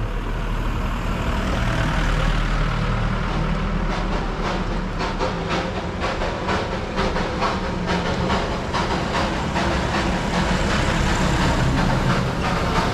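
Darjeeling Himalayan Railway steam locomotive ('toy train') passing close by, with a steady hiss of steam and, from about four seconds in, a run of sharp regular beats about twice a second.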